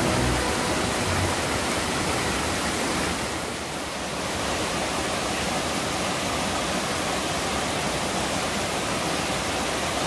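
Water rushing steadily over the small cascades of a rocky mountain stream, a dense, even rush that dips briefly about three and a half seconds in.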